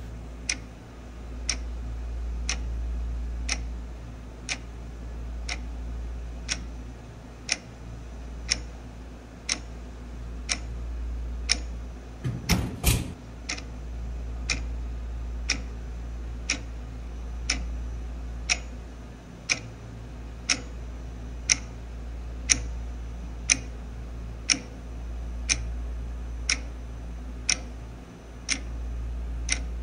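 A clock ticking about once a second over a low hum that swells and fades, with a brief burst of clicks about twelve seconds in.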